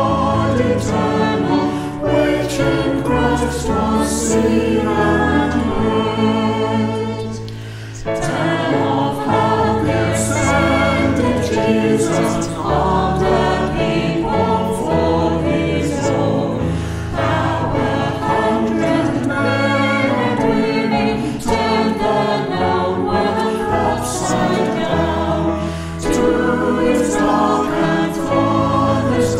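Choir singing a hymn with instrumental accompaniment over held bass notes. The music dips briefly about seven seconds in at the end of a verse, then the next verse begins.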